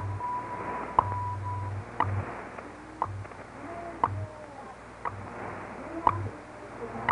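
WWV/WWVH time-signal broadcast on 10 MHz, heard over a Realistic DX-302 shortwave receiver: a sharp tick once a second, with a steady tone that stops a little under two seconds in. Under the ticks are low buzzing pulses of differing lengths each second (the 100 Hz time code), with steady static hiss and faint wavering whistles.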